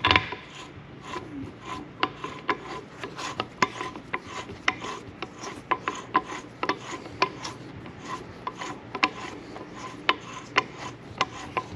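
Metal differential parts being handled and fitted by hand during reassembly: scraping and rubbing with irregular light clicks and knocks, one or two a second.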